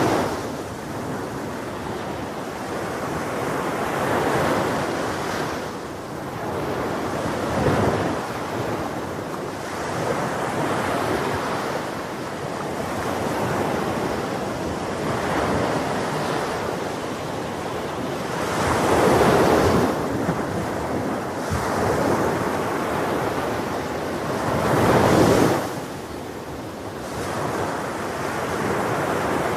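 Ocean waves breaking and washing onto a beach, a steady rush of surf that swells every few seconds. The two loudest waves come about two-thirds of the way through and again shortly after.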